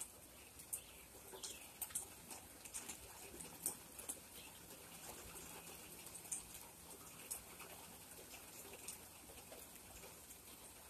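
Light rain: scattered raindrops tapping irregularly, a few sharp taps a second, faint overall with no thunder.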